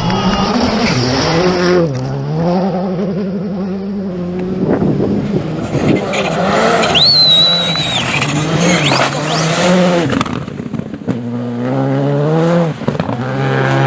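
Skoda Fabia R5 rally car's turbocharged four-cylinder engine revving hard, its pitch climbing and dropping again and again through gear changes, with a fresh climb after a drop near the end. A brief high whistle-like tone sounds about seven seconds in.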